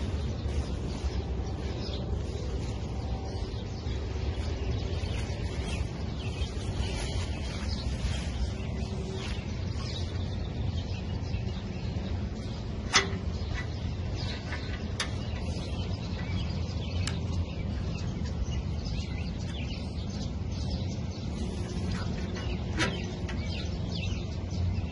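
Outdoor ambience: a steady low rumble with faint bird chirps and a few light clicks, the sharpest about thirteen seconds in.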